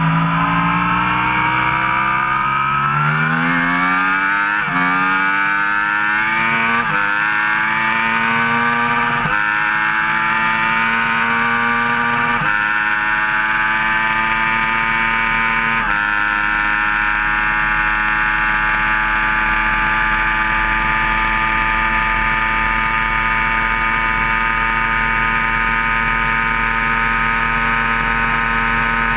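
Sport motorcycle engine under hard acceleration through the gears: the pitch climbs and drops sharply at each upshift, five or six shifts in about sixteen seconds. It then holds a steady high pitch at speed in top gear.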